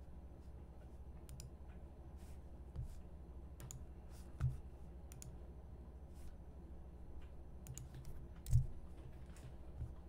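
Scattered computer mouse clicks and keyboard taps, picked up faintly by a desk microphone over a steady low hum. Two duller thumps stand out, about four and a half and eight and a half seconds in, the second the loudest.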